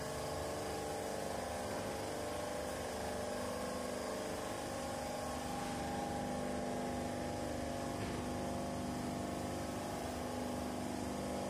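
Motor-driven refrigeration compressor of an ice machine running, a steady hum of several fixed pitches over mechanical noise.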